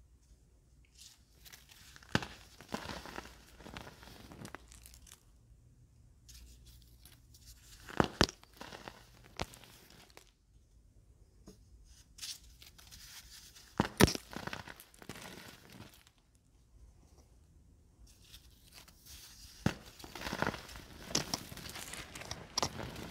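Hands crushing dry, hardened baking soda reforms, set for over a week and tough to crunch: soft crumbling and powder rustling broken by a few sharp cracks spaced several seconds apart, then a run of denser crunching near the end.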